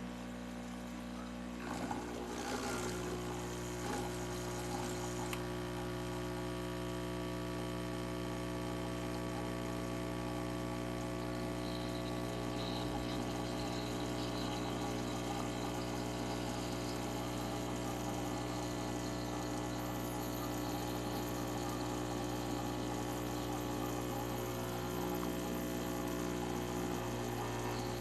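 Coffee machine running: a steady pump hum with water flowing, settling in about two seconds in.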